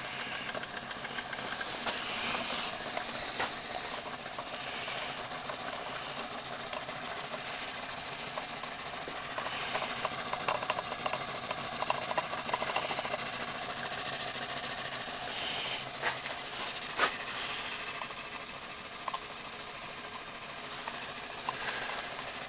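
Miniature live-steam engine running on a propane-fired boiler: a steady hiss with the light rattle of its piston, crank and spinning flywheel, and a sharp click about 17 seconds in. The boiler is nearly out of water.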